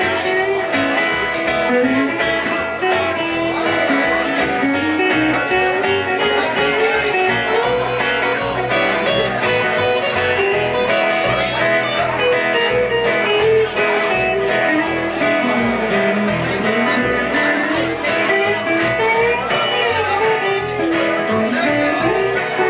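Country band's instrumental break: a picked electric guitar lead over upright bass and strummed acoustic guitar.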